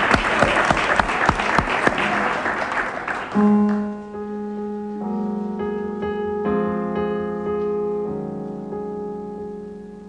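Studio audience applauding, dying away about three seconds in. A solo piano then begins, playing slow, held chords.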